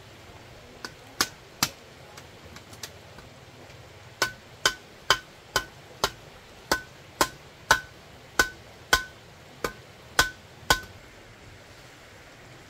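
Hammer blows: a few strikes, a short pause, then a steady run of about a dozen strikes roughly two a second, each with a brief ringing note.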